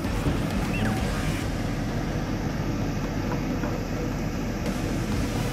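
Steady low background rumble with no distinct events in it.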